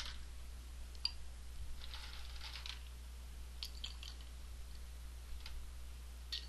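Ice cubes being dropped into a cocktail shaker: a few separate sharp clicks and clinks, with a short rattle of ice about two seconds in.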